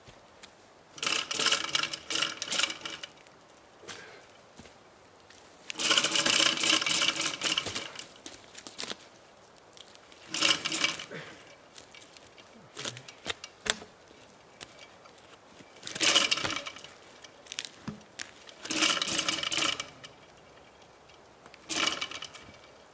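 A power drill's motor running in six short bursts of about half a second to two seconds each, with quiet pauses between them: screws or holes being worked one after another in carpentry.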